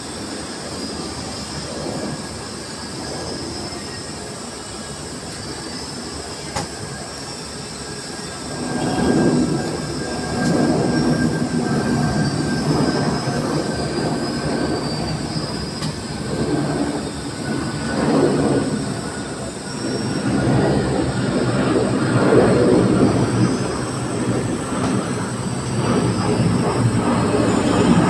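Airbus A330 airliner heard from inside the cabin: engines running and the aircraft rumbling as it rolls on the ground, the rumble growing louder and rougher about nine seconds in.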